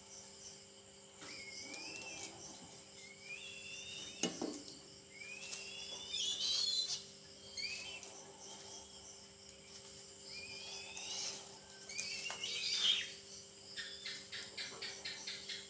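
Eagle chicks giving repeated thin, high chirping calls every second or two, the begging calls of young raptors at feeding time. A couple of sharp knocks and a quick run of ticks near the end.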